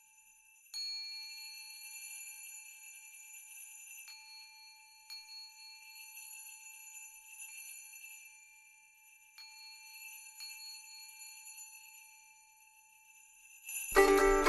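Title music of high, bell-like chime tones, struck about five times and left to ring. Louder plucked-string music comes in near the end.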